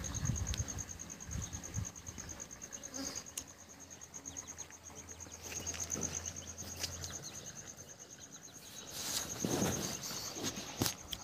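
An insect, cricket-like, trilling steadily on one high pitch with a fast pulse. A brief louder rustle comes about nine seconds in.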